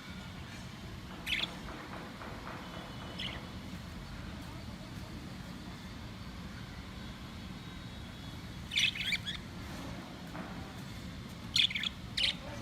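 Pet budgerigars chirping in short, scattered bursts, with a cluster of quick chirps near the middle and another near the end, over a steady low hum.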